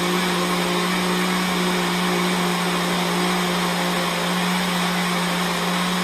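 Cooks countertop blender running at one steady speed, its motor humming and whirring as it blends a thick liquid punch of stout, milk, oats, seeds and boiled carrot.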